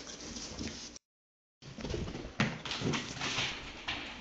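Basenji puppy and a Shih Tzu–Yorkie mix scuffling in play. The sound drops out completely for about half a second, then irregular paw clicks and skitters follow on a hardwood floor, with a sharp knock about midway.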